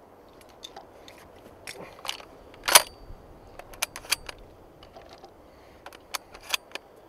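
Marocchi semi-automatic shotgun being loaded with cartridges: a string of short, sharp metallic clicks and clacks, the loudest about three seconds in.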